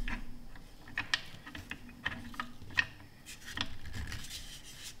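Irregular small clicks and ticks, roughly two a second, from hands adjusting the eyepieces and head of an Amscope SM-4TZ-144A stereo microscope, over a faint low hum.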